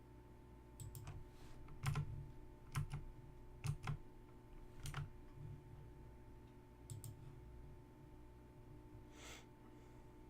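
Scattered clicks from working a computer, some in quick pairs like double-clicks, over a faint steady electrical hum.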